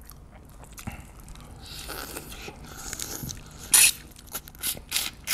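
Mouth sounds of eating raw marinated crab: a soft hiss of sucking and slurping the meat out of the shell, then, near the four-second mark, a quick run of sharp wet clicks and smacks, four or five a second.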